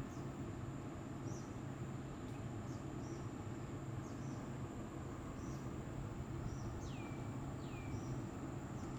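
Outdoor nature ambience: a steady, high-pitched insect drone, with short high chirps about once a second. Near the end come two whistles that slide down in pitch, all over a steady low background hum.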